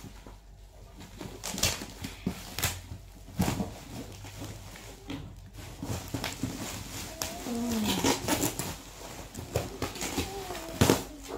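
Plastic wrapping and a plastic bag crinkling and crackling as they are snipped and pulled off a cardboard box, in a run of irregular sharp crackles, the loudest near the end. About eight seconds in comes a short, falling, voice-like sound.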